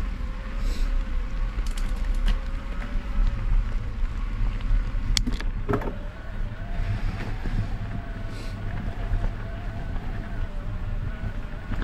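Mountain bike rolling over a gravel track, tyres crunching with a heavy low rumble and a steady faint whine underneath. A couple of sharp clicks, like stones flicked by the tyres, come about five to six seconds in.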